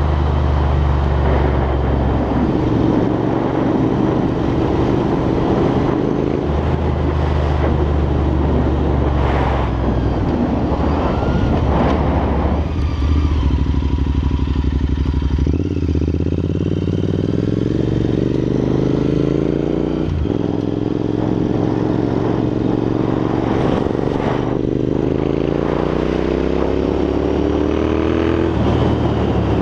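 Royal Enfield Interceptor 650's 648 cc parallel-twin engine heard through Red Rooster aftermarket exhausts while riding. The exhaust note climbs in pitch as the bike accelerates and drops back a few times as it shifts up, with wind noise on the microphone underneath.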